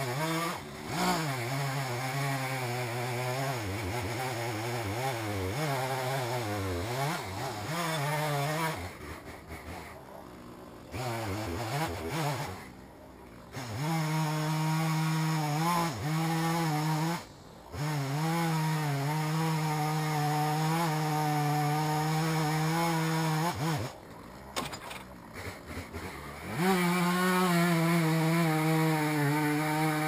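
Two-stroke chainsaw cutting into a honey locust trunk, its engine note wavering under load. It drops back to a low idle four times, for a second or two each, then revs up again, running loudest and steadiest near the end.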